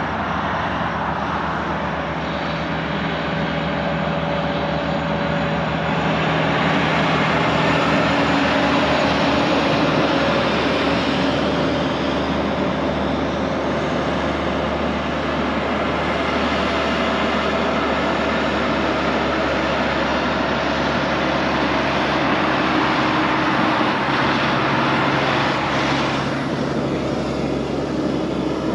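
Diesel engine of a semi-truck pulling two tanker trailers up a steep mountain grade, labouring in a steady heavy drone over tyre noise. It swells slightly a few seconds in and then holds.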